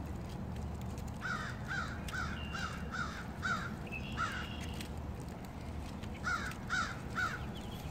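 Crows cawing: a run of six harsh caws about two a second starting about a second in, one more a little later, and three more near the end, over a steady low rumble.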